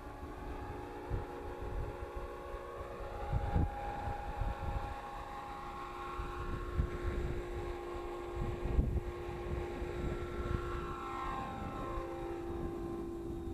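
Electric Align T-Rex 500E RC helicopter in flight: a steady whine of motor and rotor blades that changes pitch near the end. Gusty wind rumble on the microphone runs underneath.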